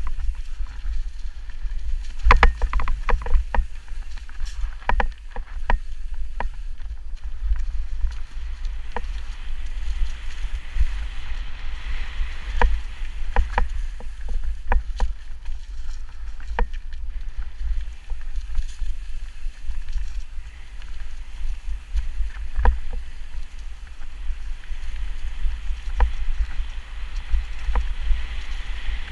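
Mountain bike descending a dirt singletrack: tyres rolling over dry leaves and roots, with many sharp rattles and knocks from the bike over bumps. Under it runs a steady low rumble of wind and jolting on the microphone.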